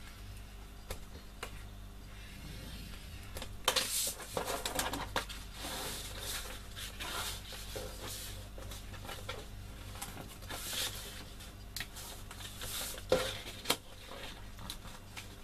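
Kraft cardstock being worked on a scoring board: scrapes of a scoring stylus along the board's grooves and rustling, crackling card as it is creased and folded along the score lines, starting a few seconds in. Two sharp clicks come near the end.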